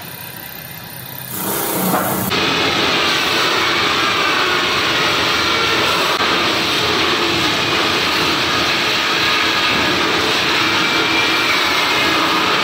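Stainless steel sink polishing machinery running: a steady, loud rushing noise with a faint wavering whine, which swells up about two seconds in after a quieter start.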